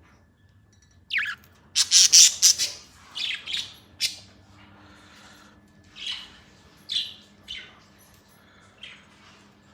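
Budgerigars squawking and chirping: a loud burst of harsh calls about a second in, then scattered shorter calls.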